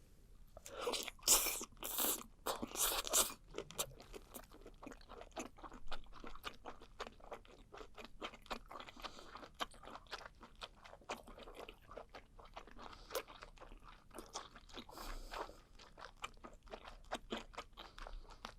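Close-miked chewing of blanched webfoot octopus: a few loud bites in the first few seconds, then a long run of small quick chewing clicks.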